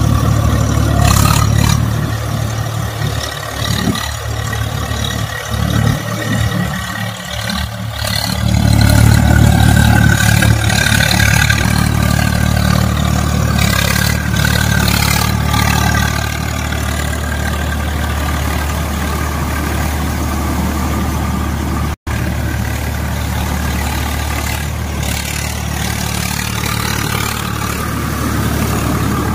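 Swaraj 855 FE tractor's three-cylinder diesel engine running steadily under load while its rotavator churns through flooded paddy mud and water. The sound cuts out for an instant about three-quarters of the way through.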